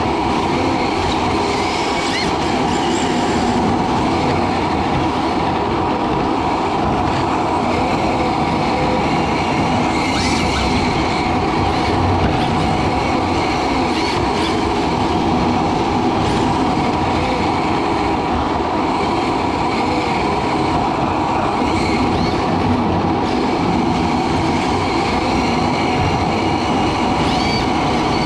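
Onboard sound of a radio-controlled drift car lapping a track: a steady mix of electric motor and drivetrain whine with the hard tyres sliding on the smooth floor.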